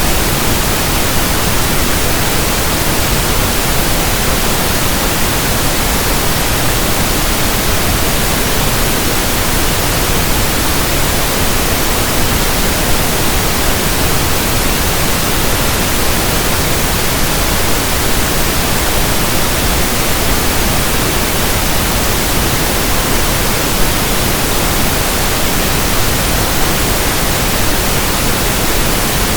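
Steady synthetic pink noise: an even hiss across the whole range, with no tones, clicks or breaks.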